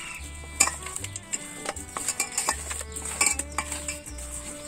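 Raw fish pieces being mixed by hand in a stainless steel bowl: irregular clinks and knocks of fish and fingers against the metal. Background music with held notes and a low bass plays underneath.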